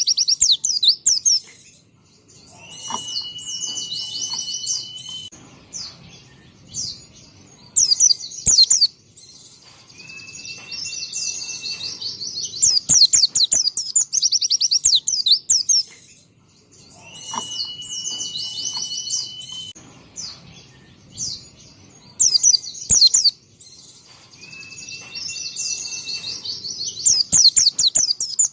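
White-eye (pleci) song: loud bursts of rapid, high twittering trills, broken by short steady whistled notes, with the same run of phrases coming round again about every fourteen seconds.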